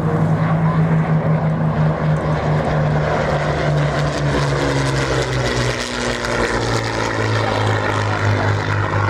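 Rolls-Royce Merlin V12 engine of a Second World War propeller fighter flying past, a steady drone that drops in pitch about six seconds in as the aircraft passes.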